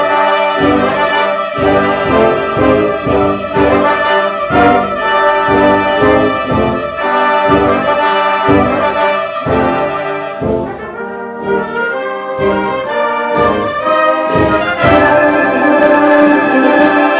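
Wind band playing: brass and woodwinds in full chords over percussion hits about two a second. The band thins out a little around the middle, then comes back in full and loud near the end.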